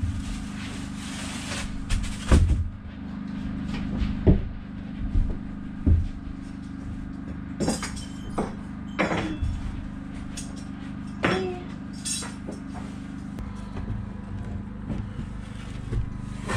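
Hammer driving nails into metal hurricane ties on the roof rafters: single blows spaced one to two seconds apart, over a steady low hum.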